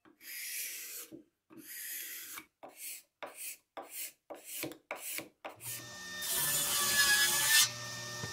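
Steel card scraper rasping across the sawn face of a walnut board in about a dozen strokes, two long ones followed by short quick ones about three a second, flattening the ridges left by the saw cut. From about six seconds in a table saw runs with a steady hum and whine.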